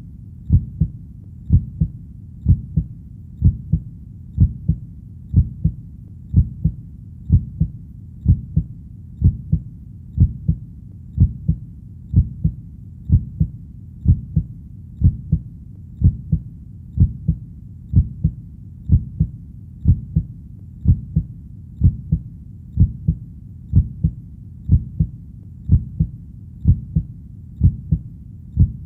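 Heartbeat in a steady, even rhythm: a low double beat (lub-dub), about one a second.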